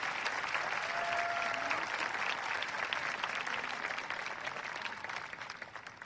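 Applause from a large audience, with a faint whistle about a second in, dying away over the last second or so.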